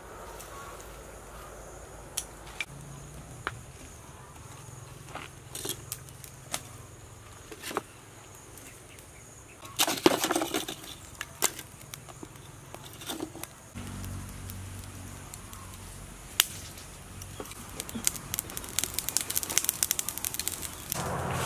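Twig and charcoal fire crackling in a clay bucket stove as the kindling catches: scattered sharp pops, a louder jumble about halfway, and a dense run of quick crackles near the end.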